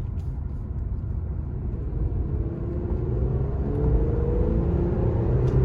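Infiniti Q50 Red Sport's twin-turbo V6 accelerating: a low rumble that grows steadily louder, with an engine note rising in pitch over the second half.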